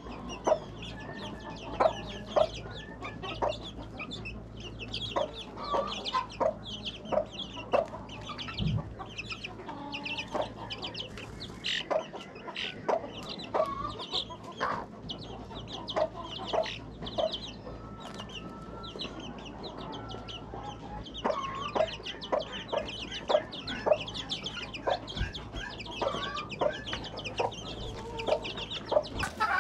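Flock of poultry calling continuously: many short, high chirps and peeps mixed with lower clucking notes, a few of them louder and closer.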